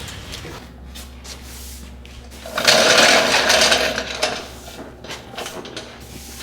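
A small electric power tool runs in one short burst of about a second and a half near the middle, then stops.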